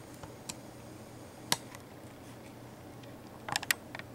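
Handling noise: a few separate sharp clicks and taps, the loudest about a second and a half in and a quick cluster near the end, over a faint steady room hum.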